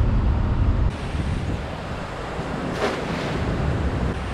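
Wind buffeting the microphone, with one short splash about three seconds in as a thrown cast net hits the water.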